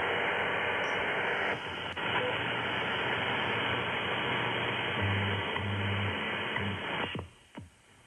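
Icom IC-7610 receiver's speaker hissing with static as its main dial is tuned down through the shortwave bands, with a few short low tones about five seconds in. The noise drops away suddenly about seven seconds in.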